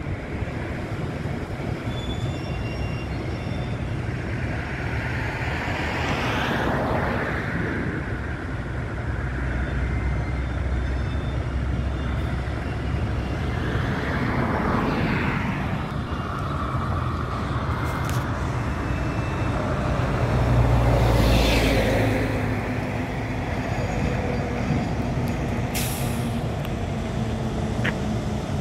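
Road traffic: a steady low rumble with vehicles going by three times, each swelling and fading, the loudest about three-quarters of the way through.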